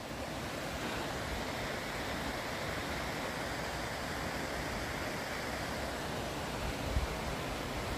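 A woodland torrent running steadily, an even hiss of flowing water, with a soft low bump about seven seconds in.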